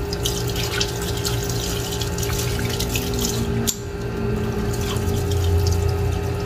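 Tap water running over a hand-held toupee and splashing into a sink as it is rinsed, with a steady low hum underneath.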